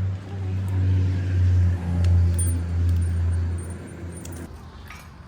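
A motor vehicle's engine running with a low, steady hum that swells about two seconds in and fades away near the end.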